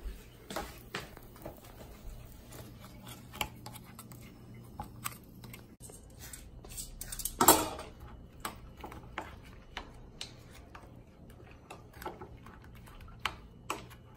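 Small clicks and clatters of meatballs being stirred into sauce in a small ceramic bowl, with one louder knock about seven and a half seconds in, over a faint low hum.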